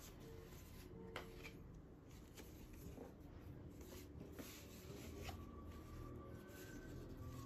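Faint rustling and handling of paper cards and a folded paper leaflet, with two light ticks, one about a second in and one a little after five seconds.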